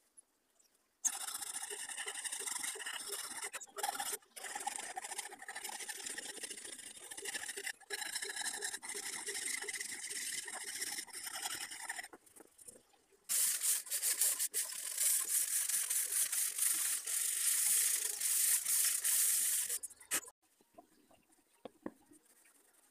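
Hand scraping and abrasive rubbing on a knife's wooden handle and bolster, in two long spells of steady rasping with a short break between, the second brighter and hissier than the first.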